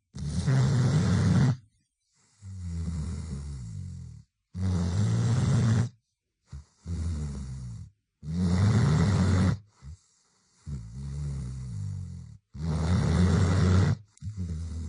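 Dog snoring in its sleep: loud snores alternate with softer ones about every two seconds, with short silent pauses between them.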